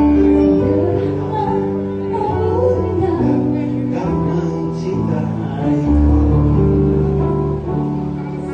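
Live band music, a pop ballad played on keyboard and amplified instruments over held bass notes, with a short stretch of singing in the middle.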